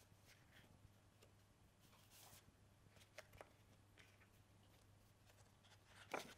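Near silence with a faint low hum, broken by a few soft rustles and clicks of paper flashcards being moved through a stack; a slightly louder one comes near the end.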